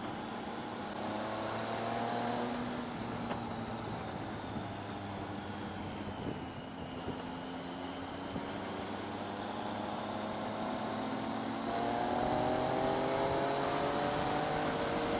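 Triumph Tiger 800's three-cylinder engine running as the motorcycle is ridden, with wind noise. The engine note rises as it accelerates near the start and again over the last few seconds.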